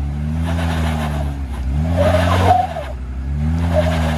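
Jeep Wrangler JL engine revving up and easing off about three times under load as it tries to climb a rock ledge, with tires squealing and scrubbing on the rock at the loudest push about two seconds in.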